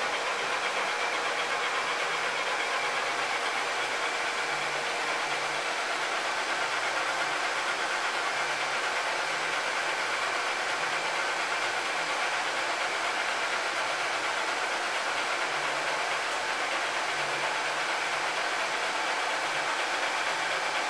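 Epilog Mini laser engraver running through an engraving job: a steady mechanical whir and hiss, with faint steady tones and a low hum that comes and goes as the laser head travels over the workpiece.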